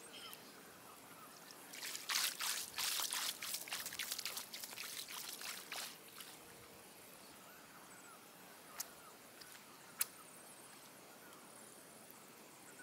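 Shallow water lapping and trickling at the shoreline. A run of irregular sloshes lasts about four seconds, starting a couple of seconds in, and then fades to a faint wash. Two short sharp clicks come near the end.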